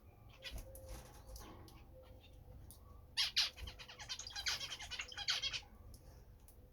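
European goldfinch twittering: scattered single chirps, then a rapid run of high chirps starting about three seconds in and lasting some two seconds.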